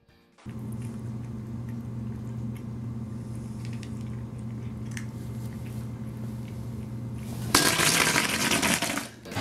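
Steady low electrical hum with a few faint ticks. About seven and a half seconds in, a sudden loud rushing noise lasts nearly two seconds, as a startled cat leaps aside, then cuts off.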